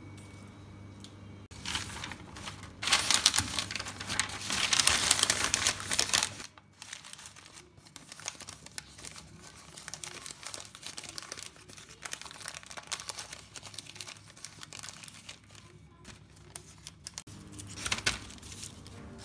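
Newspaper crinkling and rustling as it is crumpled and pressed into a bamboo basket to line it. The loudest crackling comes over a few seconds near the start, followed by softer rustling as the paper is smoothed down, and a louder rustle near the end.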